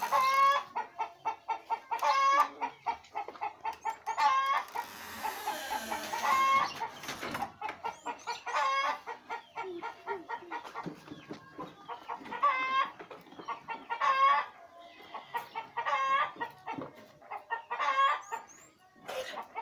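Chickens calling over and over, short pitched clucks coming about every two seconds. A rustling hiss runs through the middle, about five to seven seconds in.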